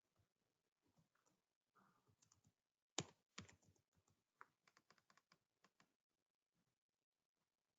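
Faint computer keyboard typing: a quick run of keystrokes about halfway through, the first one the loudest.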